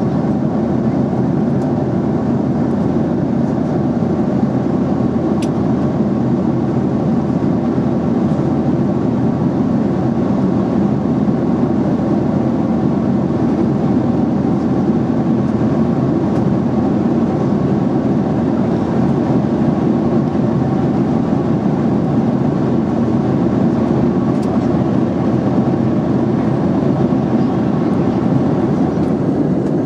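Steady cabin drone of a Boeing 737-800 in flight: the CFM56 turbofans and the airflow over the fuselage, heard inside the passenger cabin as an even, low rushing roar.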